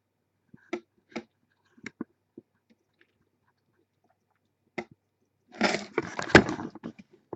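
A handful of sharp, separate clicks, then about a second and a half of loud crunching, crackling handling noise near the end.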